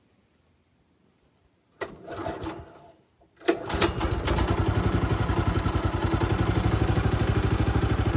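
Small gasoline engine of a portable bandsaw sawmill being pull-started cold. The first pull, about two seconds in, turns it over without catching. The second pull, about a second later, catches, and the engine settles into a steady, evenly pulsing run.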